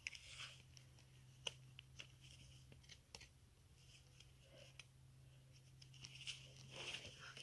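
Hoof knife paring the sole of a horse's hoof: faint scraping cuts with a handful of short, sharp clicks spaced a second or so apart, over a faint steady low hum.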